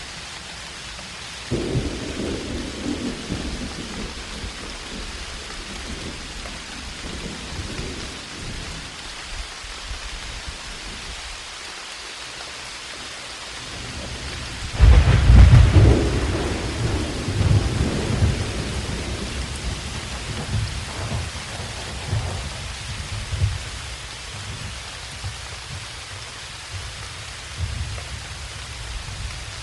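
Steady rain with rolling thunder. A rumble of thunder comes in near the start, and a much louder thunderclap about halfway rumbles on for several seconds before fading into the rain.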